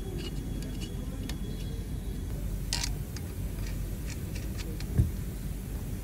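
Scattered light clicks and ticks from a hex key working bolts in an aluminium frame, with a single dull thump about five seconds in, over a steady low rumble.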